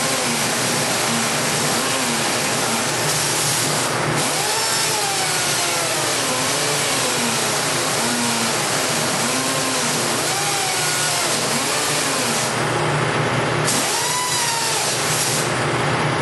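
Handheld rotary power tool grinding at a cast iron stove door: a steady harsh hiss, with the motor's pitch sagging and recovering about once a second as it is pressed into the metal.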